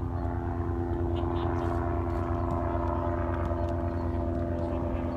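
A steady engine drone with a constant pitch over a low rumble, holding unchanged throughout.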